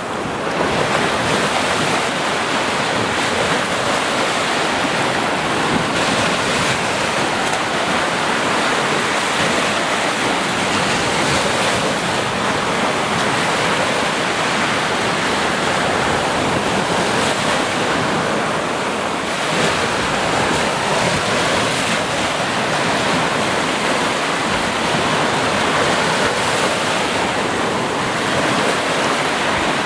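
Sea waves washing onto a beach: a steady, continuous surf, with a slight lull about two-thirds of the way through.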